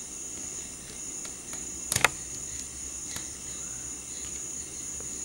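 Precision screwdriver working a small screw out of a phone's back case: faint ticks, and a sharp double click about two seconds in. A steady high-pitched tone runs underneath.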